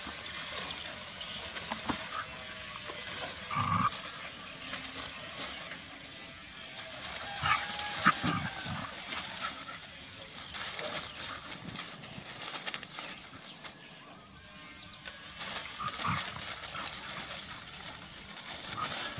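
Dogs moving through bushes and dry fallen leaves, with a rustling hiss throughout and a few short dog vocal sounds, the loudest about eight seconds in.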